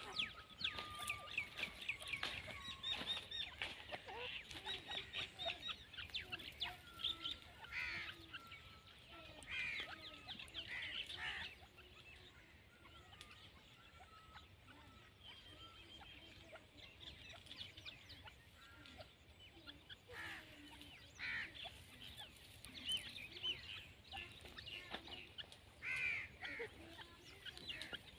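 Grey francolins calling in bouts of rapid, high, squeaky notes. The uploader gives this call as the female's. The calls are thickest in the first few seconds and again near the end, with a quieter stretch in the middle.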